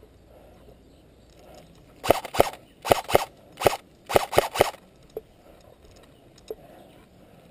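Airsoft Galil replica rifle firing about eight single shots in quick uneven groups over roughly three seconds, each a sharp crack.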